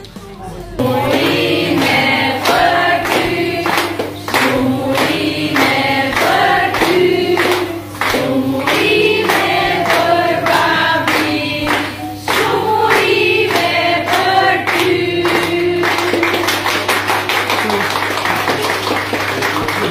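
A group of voices singing a birthday song together, with hands clapping along to the beat, breaking into applause near the end.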